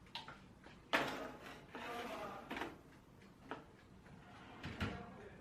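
A series of knocks and clatters of things being handled, the loudest about a second in, with a scraping, rustling stretch around two seconds and single clicks after it.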